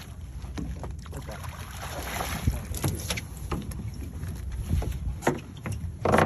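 A small fishing boat rocking on the water, with a steady low rumble and scattered knocks and clatters on the hull and deck. A louder burst of noise comes near the end.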